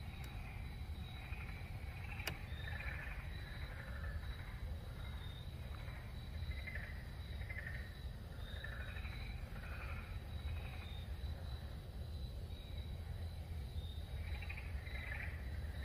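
Night insects in a swamp: a steady high trill with scattered chirps over a low steady rumble, and one faint click about two seconds in.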